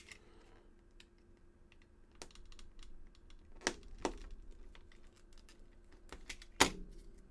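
Small clicks and scrapes of a utility knife cutting into a foam dart's head, with a few sharper clicks, the loudest near the end.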